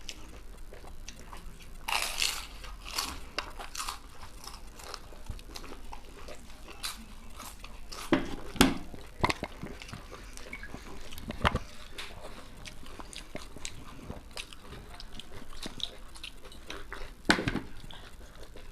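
Close-up crunching bites and chewing of crisp papdi chaat, its fried wafers cracking, with several louder crunches among steady smaller crackles.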